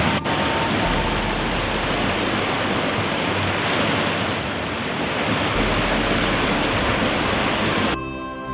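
Falling water of a desert waterfall and stream, a steady loud rush. Near the end it gives way to background music.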